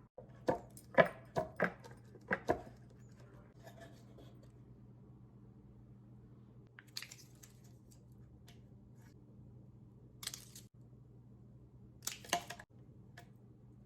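Small objects being handled at close range: a quick run of about six sharp taps and clicks, then three brief rustles spaced a few seconds apart, over a low steady hum.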